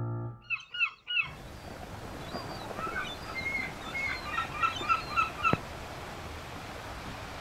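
Herring gulls calling: short yelping calls, then a quick run of repeated calls, over a steady outdoor hiss. The calls end with a sharp click past the middle, and only the hiss is left.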